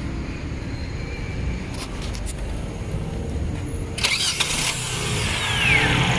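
Car engine cranked by the starter, which engages with a burst of noise about four seconds in; the engine catches, the starter's whine falls away, and the engine runs on louder near the end.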